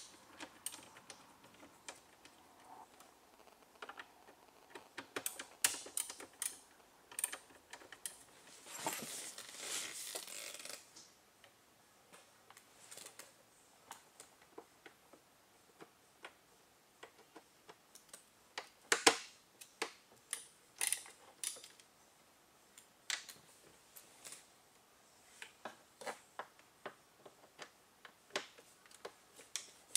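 Irregular clicks and light taps of a Torx screwdriver on a flexible extension working the screws and plastic trim of a car dashboard. About a third of the way in there is a rustle lasting about two seconds, and a sharper click comes a little past halfway.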